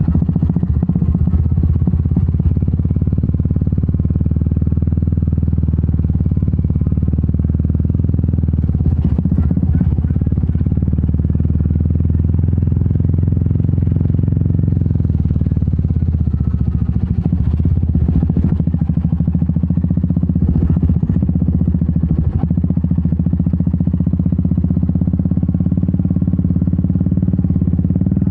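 Royal Enfield Meteor 350's single-cylinder engine and exhaust running steadily under way, with scattered knocks and rattles from riding over a rough dirt road.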